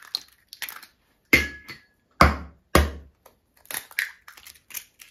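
Eggs being cracked on the rim of a mixing bowl: three sharp knocks within about a second and a half, then lighter clicks and taps of shell.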